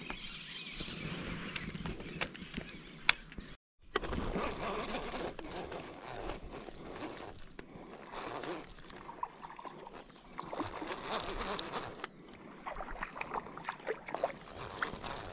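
Baitcasting reel being cranked by hand to retrieve line, with irregular handling noise and scattered clicks, and short bird chirps in the background.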